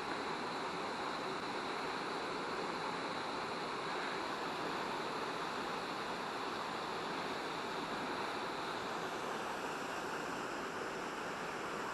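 Waterfall water running under and behind ice, a steady, even rush.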